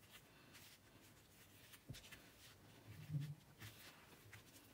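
Near silence with faint rustles and small ticks of binding thread and paper being handled as a knot is tied in the thread of a hand-sewn notebook.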